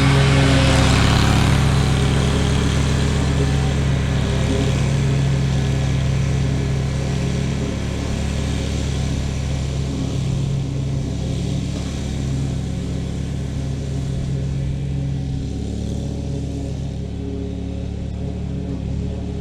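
A motor vehicle's engine running steadily, with a hiss that fades after the first couple of seconds and a gradual slight drop in level.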